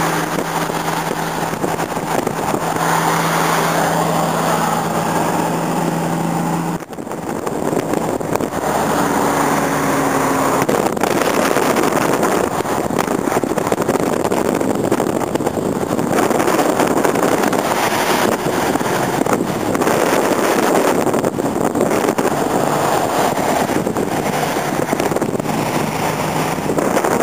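Road and wind noise of a car driving at highway speed, with air rushing in through an open window. A steady low hum sits under the rush for the first seven seconds or so.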